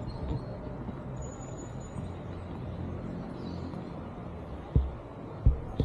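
Steady low outdoor background rumble, with a few dull low thumps near the end.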